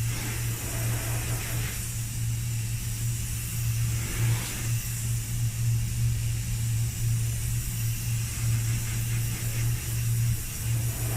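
A steady low machine hum at one pitch, with a faint even hiss above it.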